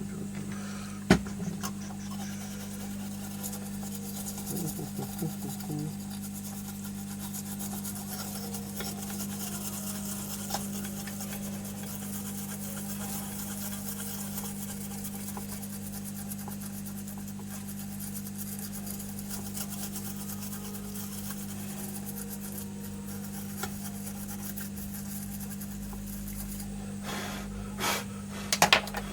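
Scratchy scrubbing and rubbing on a tablet circuit board as it is cleaned, over a steady low hum. There is a sharp click about a second in and a few knocks near the end.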